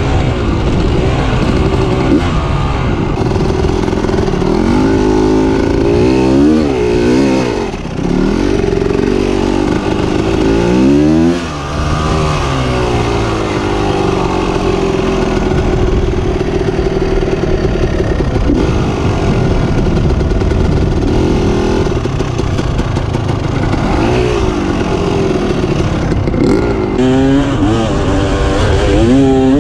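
KTM EXC 300 two-stroke dirt bike engine riding hard, its pitch climbing and falling again and again as the throttle is worked and gears are shifted. Around a third of the way in the revs drop off sharply twice before climbing again.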